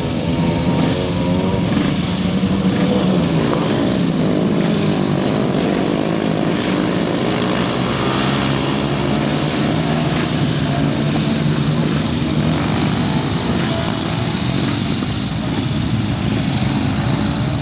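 A pack of 500cc grasstrack racing sidecar outfits at full throttle, several engines howling together with their notes rising and falling as they slide through the bend and pass by.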